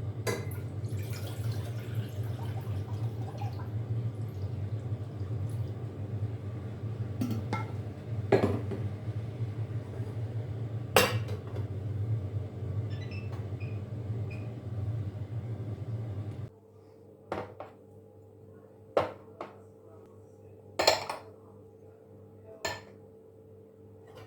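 Dishes and kitchen utensils clinking and being set down, over a steady low hum that cuts off suddenly about two-thirds of the way through; a few more separate clinks follow.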